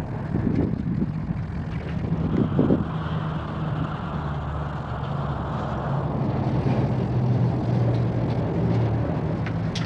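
Steady low rumble of motor traffic with an engine drone that shifts slowly in pitch.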